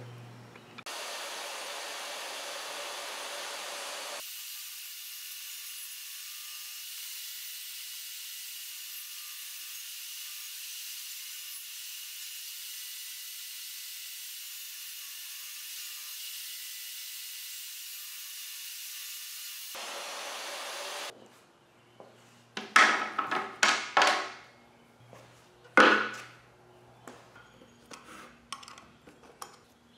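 Table saw running steadily for about twenty seconds, then stopping; after it, a series of sharp metal clicks and scrapes as a screwdriver pries the lid off a tin of paste wax.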